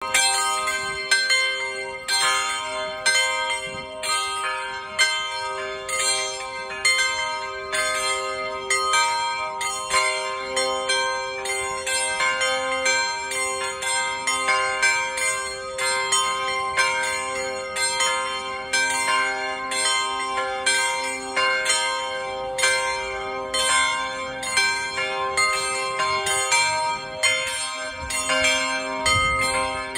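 Set of tower bells in a clock-tower monument playing a melody for the hour, notes struck about twice a second and each left ringing so they overlap.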